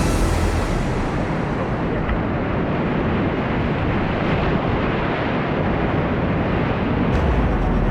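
Whitewater rapids rushing: a steady, dense wash of water noise with no letup.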